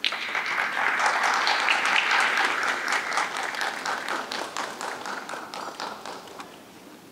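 Audience applauding: many hands clapping at once, starting suddenly and slowly dying away over about six seconds.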